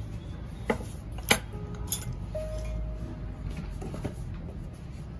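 Metal hand tools clicking against each other and the work during hand carving of a guqin's wooden end: three sharp clicks in the first two seconds, the middle one loudest, then a couple of faint ticks, over a steady low hum.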